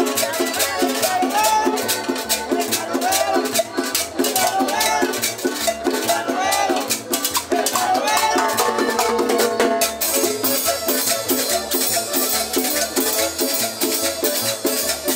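Live Latin dance-band music at a steady tempo, with a regular bass beat, a shaker ticking fast throughout and a melody over it, amid a dancing crowd.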